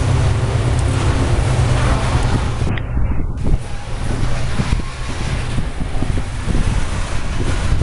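GE U23CA diesel-electric locomotives running as they pass close by, their low engine drone strong for the first four seconds or so and then easing off. Loaded bauxite gondola wagons then rumble along the rails with irregular knocks and clanks, and wind buffets the microphone.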